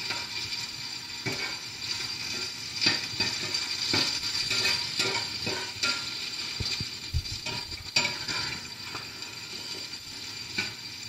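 Metal spatula scraping and knocking against a cast iron skillet in repeated, irregular strokes as diced potatoes and onions are flipped, over a steady frying sizzle.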